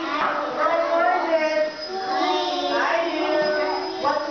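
Young children singing a song together, holding long pitched notes.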